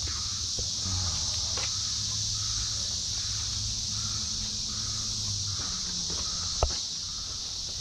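Steady high-pitched drone of insects in summer. Beneath it is a low hum that stops about two-thirds of the way through, with a few faint clicks and one sharp click near the end.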